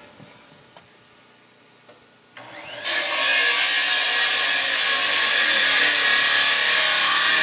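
A power cutting tool spins up about two and a half seconds in, then runs loud and steady as it cuts through the overlong end of a solar-panel mounting rail.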